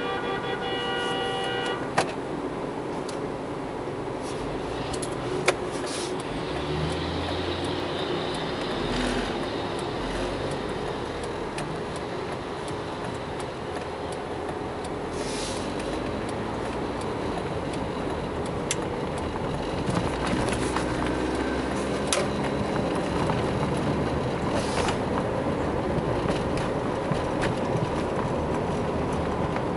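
City traffic heard from inside a moving car: a steady mix of engine and road noise. A short horn toot sounds at the start, and two sharp clicks come a few seconds apart early in the drive.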